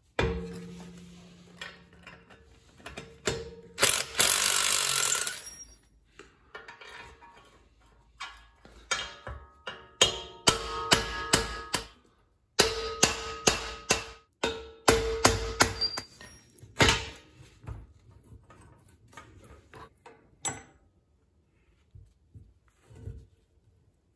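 Hammer blows on a Jeep Dana 30 front hub (unit bearing) to drive it out of the steering knuckle: sharp metal strikes with a ringing tone, in quick runs of several a second, with a short rush of noise about four seconds in.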